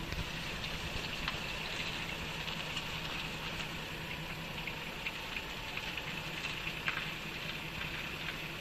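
Front suspension of a Toyota Progres creaking and clicking in short, irregular snaps as the steering wheel is turned under load, over a steady low hum. The owner suspects a worn lower ball joint or a strut.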